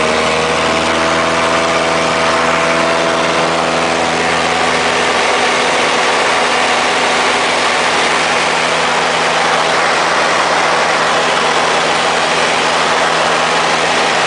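The Extra 230's four-cylinder Lycoming piston engine and propeller running steadily in flight, heard from inside the cockpit with a strong rush of airflow over it. A higher tone rises slightly over the first few seconds, then fades into the rushing.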